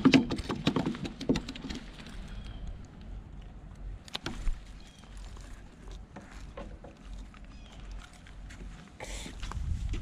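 Caught porgies being clipped onto a metal fish stringer chain on a wooden pier deck: irregular clicks and knocks of the clips and fish against the boards, heaviest in the first couple of seconds, over a steady low rumble.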